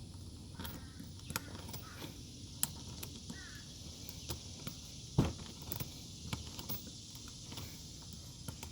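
Scattered light clicks and taps of a hand tool working a large screw out of a car tire, with one louder click about five seconds in.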